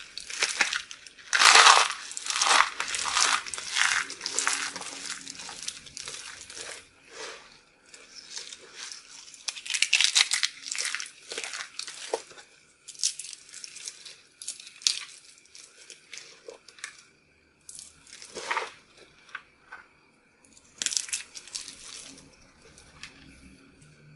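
Dry starch-coated soap roses and soap pieces crunching and crumbling between the fingers, with crinkling. Irregular bursts of crackling, separated by short pauses.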